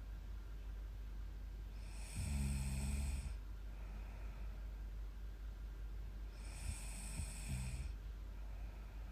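A young woman snoring in her sleep: two snores about four and a half seconds apart, each lasting a little over a second, the first the louder, over a steady low hum.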